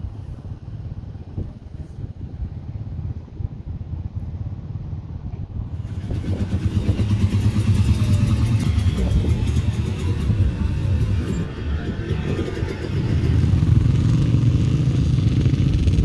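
Dirt bike engines running, a low rumble that gets louder and fuller about six seconds in.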